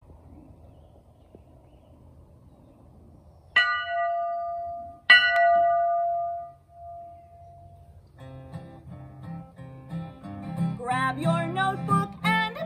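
A large post-mounted school bell struck twice, each stroke ringing out and dying away. An acoustic guitar then starts strumming, and a voice begins singing near the end.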